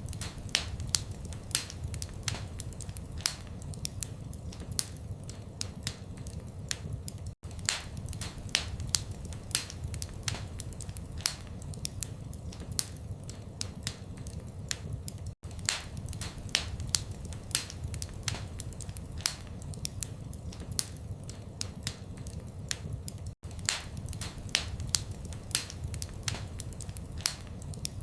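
Wood fire crackling, with frequent sharp irregular pops and snaps over a low steady rumble of flames. The sound cuts out for an instant about every eight seconds.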